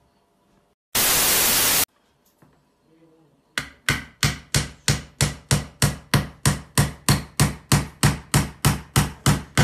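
A loud burst of hiss lasting about a second, then a hammer striking a wooden slat in a fast, even run of blows, about three and a half a second.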